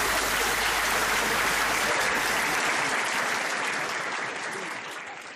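Audience applauding, steady at first and fading away over the last second or so.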